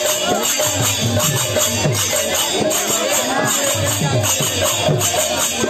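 Live street drumming from hand-carried drums, a fast steady beat of strokes that drop in pitch, with metallic jingling layered over it.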